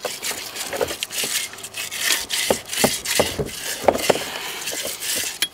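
A coarse brush scrubbing a greasy rear wheel hub in a tub of heavy-duty degreaser, in quick, irregular back-and-forth strokes.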